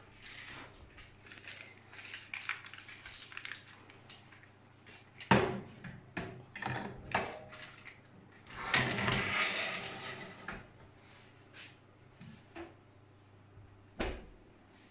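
A metal baking tray knocked and clattered, then slid scraping onto the rack of a built-in electric oven, and the oven door shut with a thud near the end.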